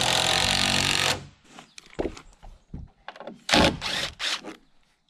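DeWalt cordless impact driver driving a long timber screw into a rough-sawn wooden beam. It runs steadily for about a second and stops, then fires in several short bursts.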